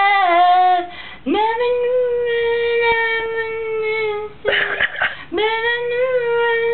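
A woman's unaccompanied singing voice: the word "love" drawn out and falling away, then two long held wordless notes with a short breathy sound between them about four and a half seconds in.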